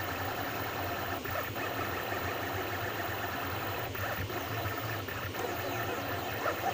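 Anycubic Kossel delta 3D printer running a print: a steady mechanical hum with short pitched chirps from its stepper motors as the print head moves.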